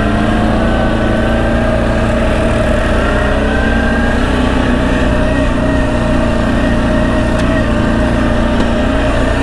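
CFMoto X8 ATV's V-twin engine running steadily under way, its pitch rising and falling slightly with the throttle.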